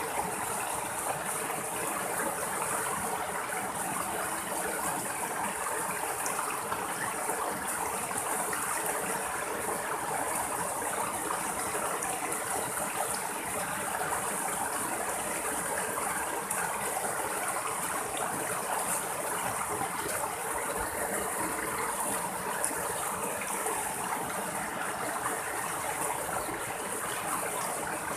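Water of a small rocky stream running and splashing over two little cascades between boulders, a steady even rush with no breaks.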